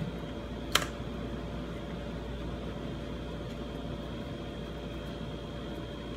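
Steady fan hum with a faint even whine, and one sharp click about a second in.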